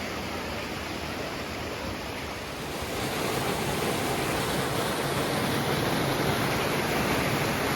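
Mountain creek water rushing over rocks, a steady hiss that grows louder about three seconds in.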